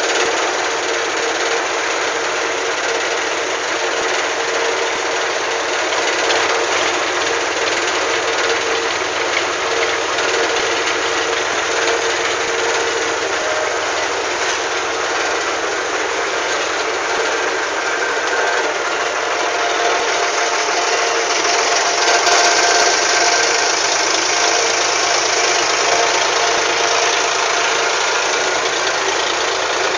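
River ferry's engine running steadily and loudly, its note shifting higher about twenty seconds in.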